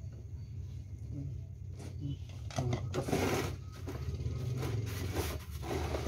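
Plastic housing parts of an electric knapsack sprayer rubbing and scraping as the control-panel cover is pressed and fitted onto the tank body, loudest about halfway through and again near the end, over a steady low hum.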